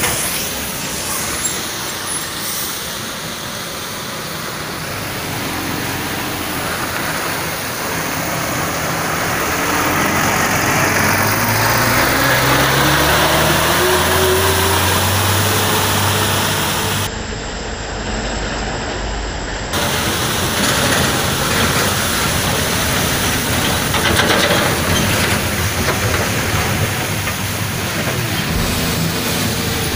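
Heavy diesel trucks passing close on a wet dirt road. The Volvo FM water tanker's engine climbs in pitch as it accelerates by, with water spraying from the tank. Then a road train of side-tipper trailers rolls past.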